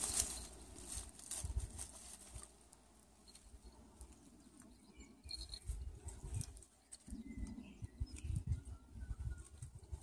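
A Jindo puppy pawing and stepping in a shallow muddy puddle among weeds: soft, intermittent splashes and patter, with a quieter stretch around three seconds in.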